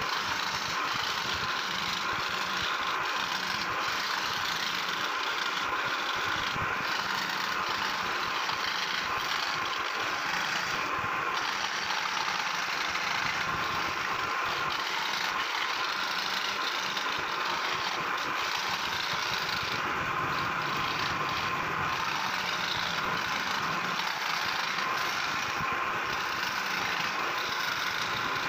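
Scroll saw running steadily, its reciprocating blade cutting fretwork through a wooden plate.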